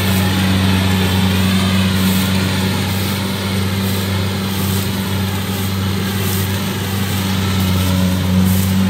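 Kubota DC70 rice combine harvester running steadily while harvesting dry rice: a constant, even engine hum with the machine's working noise over it.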